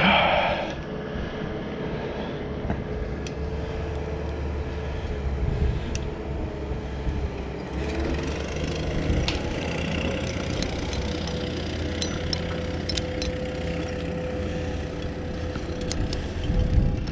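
Low rumble of wind on the microphone over an engine running steadily, with a few light metallic clinks.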